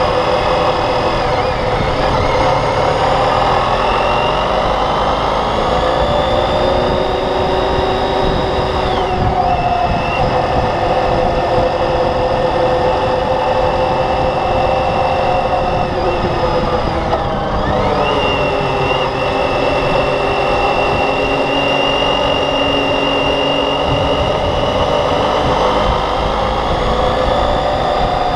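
Motorcycle engine running under way, its pitch sagging and climbing again twice as the throttle is eased and reopened, over a steady rush of wind noise.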